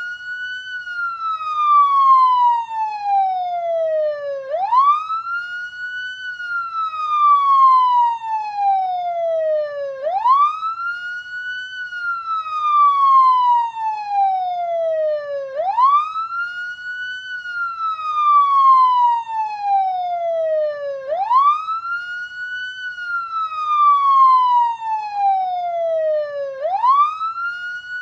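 Police car siren on wail: each cycle rises quickly in pitch, then falls slowly, repeating about every five and a half seconds.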